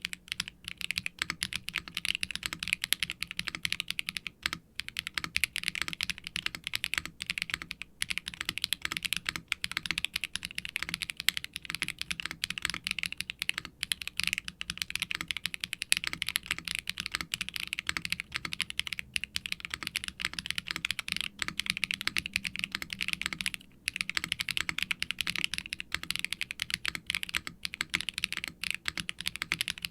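Fast continuous typing on a mechanical keyboard with Akko x HMX Cilantro tactile switches (factory-lubed, nylon bottom and PC top housings, POM stems) under double-shot ABS keycaps, in an undampened silicone tray-mount case with an FR4 plate. It pauses briefly twice, about four and a half seconds in and near twenty-four seconds.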